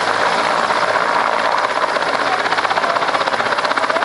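Helicopter running close by, loud and steady, its noise pulsing with a fast, even beat.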